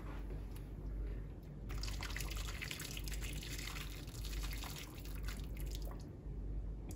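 Water running for about four seconds, starting a little under two seconds in, with scattered drips and clicks around it.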